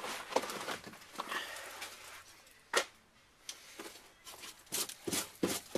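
Scraping and knocking from hand work tearing into a rusted car floor: about two seconds of dense scraping, a sharp knock a little before the middle, then a quick run of short scrapes and taps near the end.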